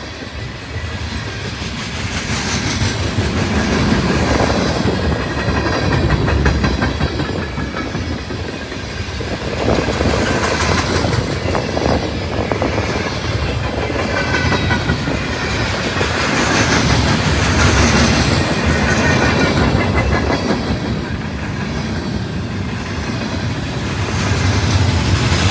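Freight train cars rolling past close by in a steady rumble, the wheels clattering over the rail joints. Faint squealing tones rise and fade now and then.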